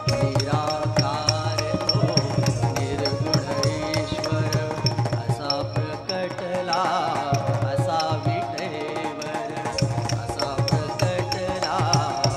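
Live Carnatic-style dance accompaniment: a singer over mridangam drumming, with violin and flute, and the nattuvangam cymbals keeping a steady high ticking beat about three times a second.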